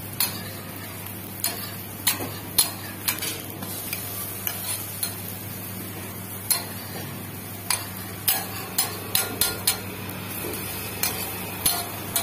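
A flat metal spatula scraping and tapping on a dosa griddle as the dosas are loosened and lifted, in irregular sharp clicks and scrapes that come thickest about two-thirds of the way in. A steady low hum runs underneath.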